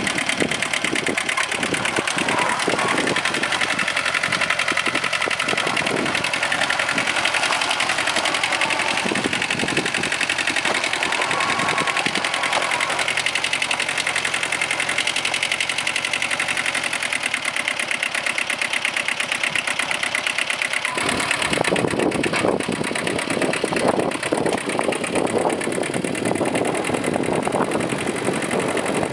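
Kubota B7000 compact tractor's small two-cylinder diesel engine running steadily with a fast, even clatter. About two-thirds of the way through the sound turns heavier and rougher, with more rumble.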